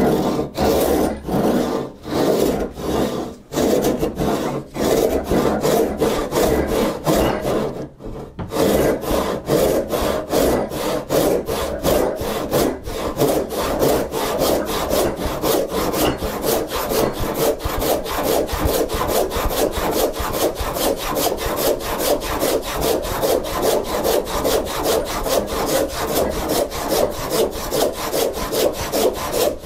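Freshly sharpened and set Disston D8 4-TPI rip saw cutting through white oak by hand, stroke after stroke. There is a brief pause about eight seconds in, and the strokes come quicker after it until the cut stops at the end.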